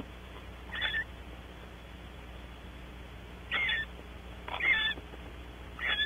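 Barn owl giving four short calls, the first about a second in and three more close together in the second half.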